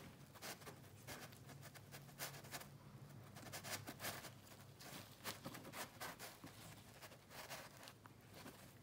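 Faint, irregular clicks and snips of steel dissecting scissors cutting into a cow's eye.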